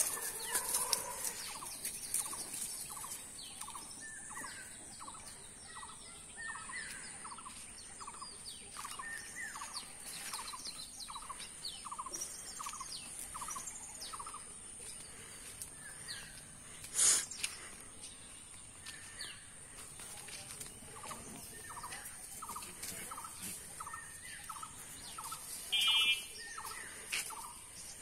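A bird repeating a short call over and over, about two a second, with a pause around the middle. A steady high whine sits under it, and there is one sharp click a little past halfway and a brief high-pitched squeak near the end.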